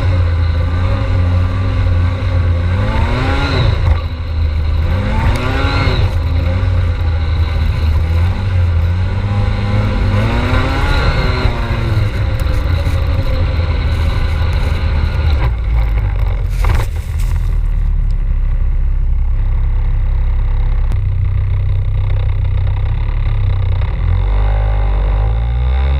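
Snowmobile engines running, a steady low drone with the engine pitch rising and falling three times, about three and a half, six and eleven seconds in, then running steadier and lower through the second half.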